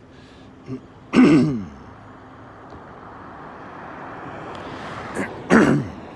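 A man clearing his throat twice, about a second in and again near the end, over steady traffic noise that slowly swells in between.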